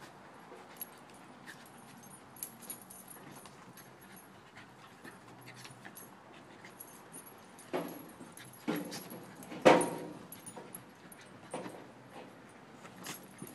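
A Siberian Husky and a Shiba Inu play-wrestling, the first half fairly quiet, then a handful of short, sudden dog vocalizations in the second half, the loudest about ten seconds in.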